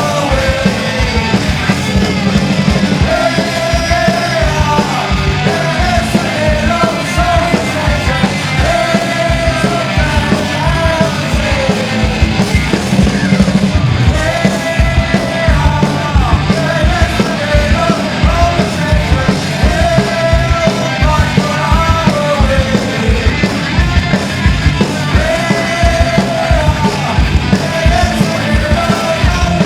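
Live punk rock band playing loud and without a break: fast, driving drums under guitars, with shouted vocals.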